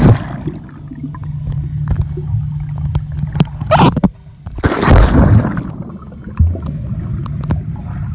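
Water splashing and sloshing over a steady low rumble, with two louder splashes a little past the middle.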